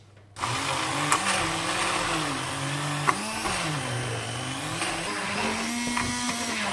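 Handheld electric mixer running in a bowl of cream cheese frosting. It starts about half a second in and its motor pitch wavers up and down as the thick mixture loads it.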